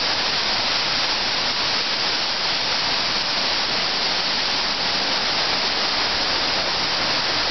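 Steady rushing and splashing of water falling through a wooden mill waterwheel.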